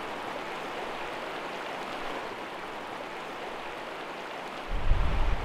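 Shallow, rocky trout stream rushing steadily around a wading angler's legs. Near the end a louder low rumble of wind on the microphone cuts in abruptly.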